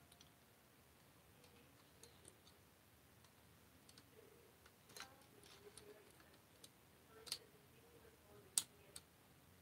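Faint, scattered clicks and taps of a small tool against 3D-printed plastic Caliburn blaster parts while a spring is being worked onto its hook, with near silence in between. The sharpest clicks come about five, seven and eight and a half seconds in.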